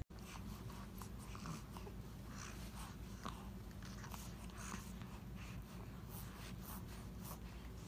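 Faint wet sucking and mouth clicks from an infant sucking on a pacifier, with soft breathing, over a low steady room hum.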